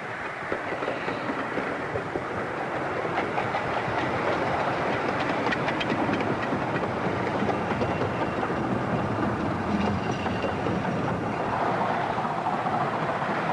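Romney, Hythe and Dymchurch Railway 15-inch-gauge miniature steam train running past with its coaches, wheels clicking over the rail joints, growing louder as it comes close. A steadier tone comes in near the end.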